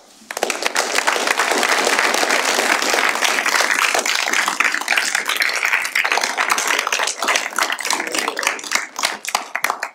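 A roomful of people applauding, starting about a third of a second in and thinning out toward the end.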